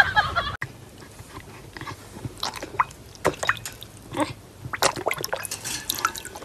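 A dog lapping water from a bowl: irregular soft wet clicks and small splashes. Before it, a brief louder sound cuts off about half a second in.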